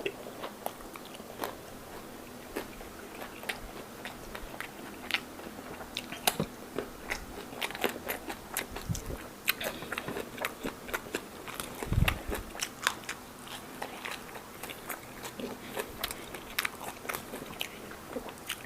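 Close-up chewing and biting of a mouthful of Isan raw beef koi with sticky rice: many irregular wet mouth clicks and smacks, with a dull thump about twelve seconds in.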